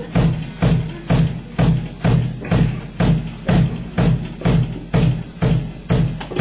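Live rock band playing a steady beat, with drum hits about twice a second over a pulsing bass line.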